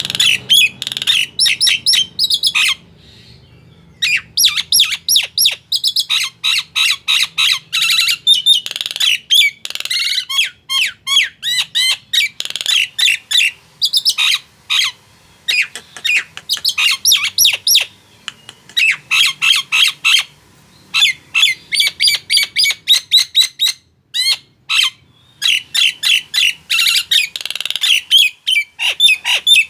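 Nias hill myna calling: rapid strings of loud, short whistles and squawks, breaking off briefly twice, about 3 seconds in and near 24 seconds.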